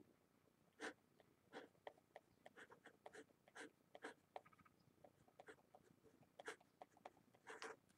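Felt-tip marker writing on paper: a string of faint, short scratchy strokes, one for each pen stroke.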